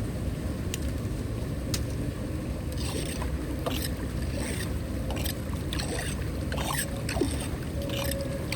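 Flowing water running steadily, with a run of short splashes and knocks starting about three seconds in.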